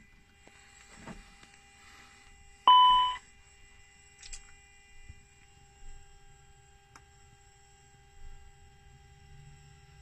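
A single loud electronic chime, two tones together fading over about half a second, sounds in an Airbus A320 cockpit about three seconds in. Under it runs the steady faint whine of the cockpit avionics, with a few light clicks, and a low hum comes up in the second half as the APU spools up.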